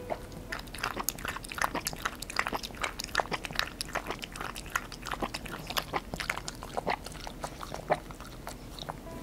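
Poodle eating and licking from a bowl close to the microphone: quick, irregular wet smacks and clicks of the tongue and mouth.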